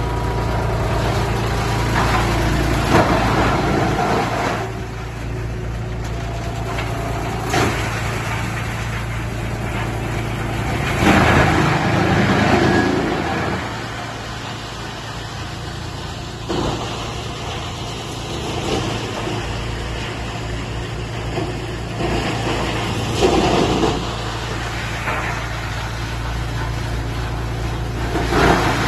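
Engine-driven wood chipper running with a steady drone, broken every few seconds by short, louder surges of noise.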